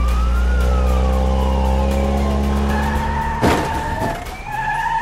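Cartoon police siren wailing slowly up and down over a steady engine hum. About three and a half seconds in, a single sharp crash as the car hits the fire hydrant, with a steady high tone sounding around it.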